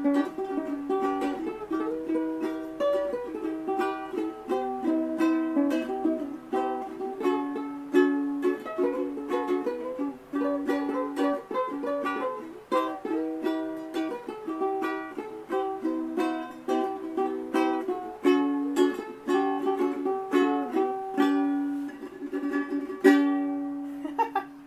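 Ukulele playing: strummed chords mixed with picked notes, ending on a last strum that rings out near the end.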